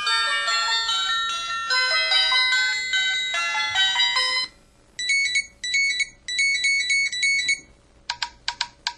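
MS340 mobile phone ringtones played through its speaker, one after another. First a polyphonic ringtone melody that ends about halfway through, then a rapid repeating electronic beeping pattern, then a few short separate beeps near the end.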